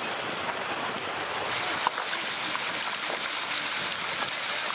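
Floodwater rushing and splashing as a car drives through a flooded street, its wheels throwing spray up against the side of the car. The rush grows louder about a second and a half in.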